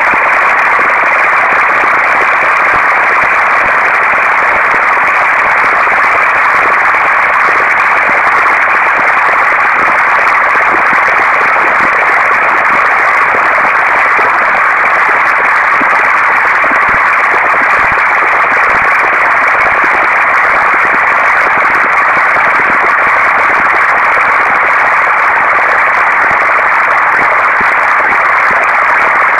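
Procedural audio generated by a p5.js pixel-sorting algorithm: a loud, steady static-like noise, dense and unchanging, confined to the middle and upper-middle range with nothing above it.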